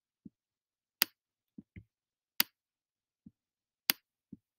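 Sharp clicks about every second and a half, with softer, duller taps between them, from a computer pointing device as letters are drawn by hand on a digital whiteboard.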